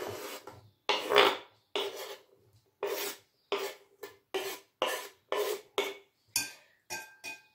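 Kitchen knife blade scraping across a wooden cutting board, pushing diced boiled carrot into a bowl in repeated short strokes, about two a second, quicker near the end.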